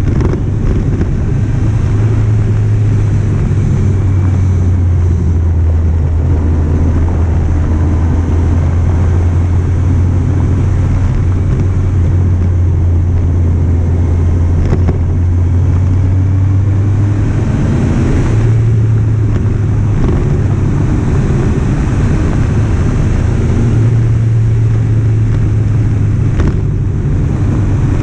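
Kawasaki Z750's inline-four engine running steadily while riding, with wind rushing over the microphone. The engine note shifts in pitch a little past halfway and again near the end.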